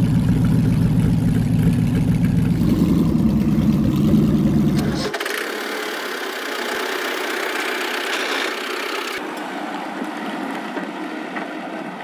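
Engine running steadily with a deep hum, cutting abruptly about five seconds in to a thinner, higher-pitched running sound with no deep tone.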